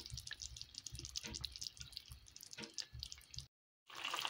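A pot of chicken curry bubbling faintly, with scattered small pops and drip-like ticks. The sound drops out for a moment about three and a half seconds in, then comes back as a steady bubbling hiss.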